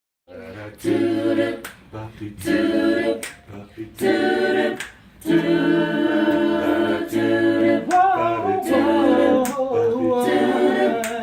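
An a cappella vocal group sings sustained wordless chords in close harmony, with finger snaps keeping time about once every 0.8 seconds.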